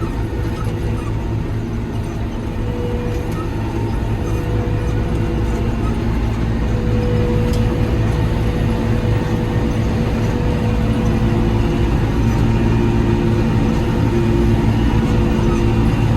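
Krone BiG M self-propelled mower conditioner running under load while mowing a heavy grass crop: a steady engine and machinery drone with a constant hum, growing slightly louder toward the end.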